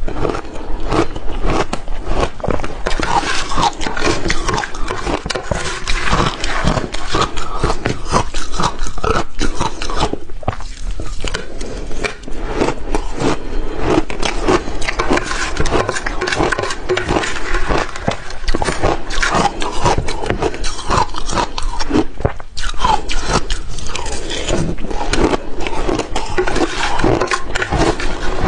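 Crushed ice being chewed close to the microphone: a dense, irregular run of crisp crunches and cracks. A metal spoon scrapes against the glass bowl between mouthfuls.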